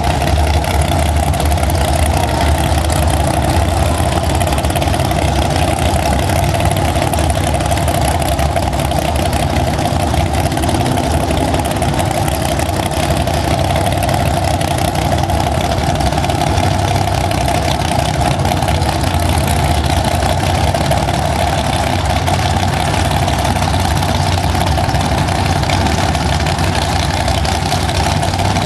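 Drag-race car's engine idling loudly and steadily at the starting line, with no revving.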